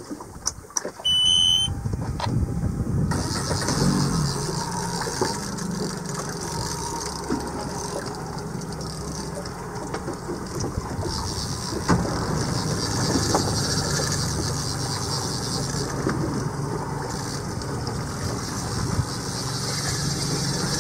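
Boat's outboard motor being started: a short electronic beep about a second in, then the engine catches about three seconds in and runs steadily at idle, with a hiss of wind and water over it.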